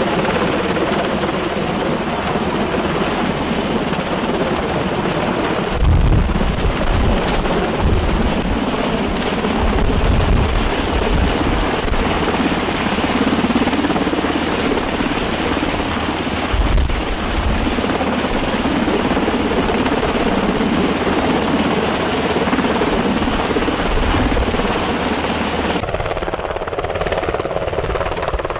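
Sikorsky HH-60G Pave Hawk twin-engine helicopter hovering low overhead, its rotors and engines running steadily, with deep gusty rumbles a few times. Near the end the sound turns suddenly duller and more distant.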